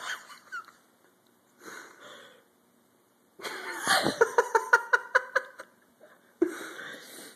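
A person laughing helplessly: wheezy breaths, then about three and a half seconds in a loud burst of quick "ha-ha-ha" laughter, about four pulses a second, and a gasping breath near the end.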